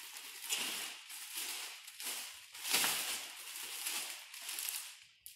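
Clear plastic shower-curtain liner crinkling and rustling as it is handled and spread over a PVC frame, in uneven swells, loudest about three seconds in.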